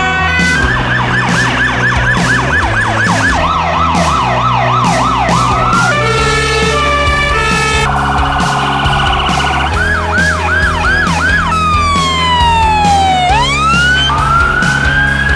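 A rapid series of different emergency-vehicle sirens, switching every few seconds between a two-tone hi-lo, fast yelps and a slow falling-then-rising wail, over background music with a steady beat.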